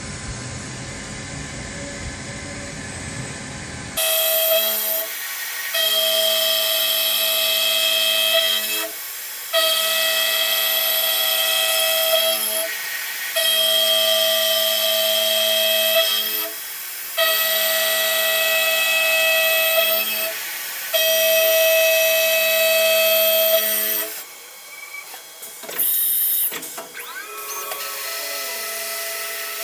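Walter face mill on a CNC mill cutting a cast iron fixture plate, ringing with a loud, steady, high-pitched chatter that breaks off briefly about every three and a half seconds. The machinist suspects harder, possibly chilled, spots in the casting cause the chatter, and notes that the inserts are made for steel rather than cast iron.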